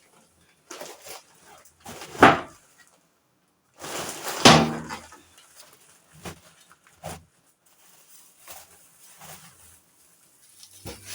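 A series of sudden knocks and thuds, the two loudest about two and four and a half seconds in, with quieter clicks and knocks between.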